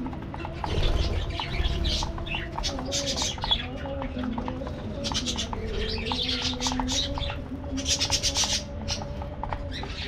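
A flock of budgerigars chattering and chirping, many short high calls overlapping in dense bursts, over a low wavering tone.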